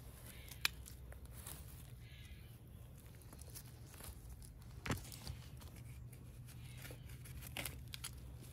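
Weeds being pulled by hand from soft, rain-damp soil: faint tearing and rustling of roots and leaves, with a sharp snap about half a second in and a louder one near five seconds.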